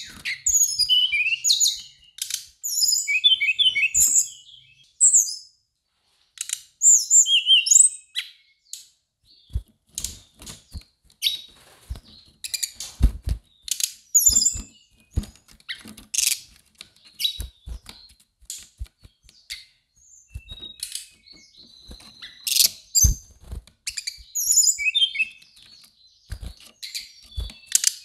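Brown-chested jungle flycatcher singing short bursts of high, quick-changing whistled phrases. Between the phrases come sharp taps and knocks from the bird hopping about its bamboo cage.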